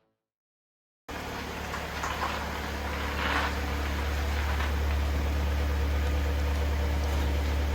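Car engine running at idle: a steady low hum under an even hiss, starting suddenly about a second in.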